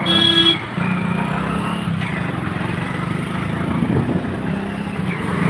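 Scooter engine running in city traffic, with road noise around it. A vehicle horn sounds briefly right at the start.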